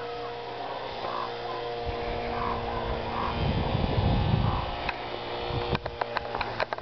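Motor and propeller of a radio-controlled foam model plane in flight, a steady hum of several fixed tones. A low rumble of wind on the microphone swells in the middle, and a quick run of clicks comes near the end.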